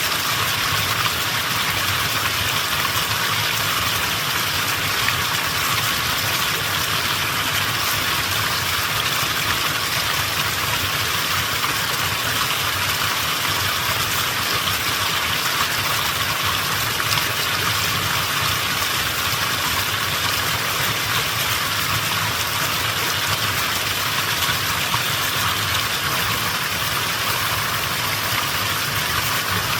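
Mountain stream flowing: a steady rushing of water with a low rumble beneath it.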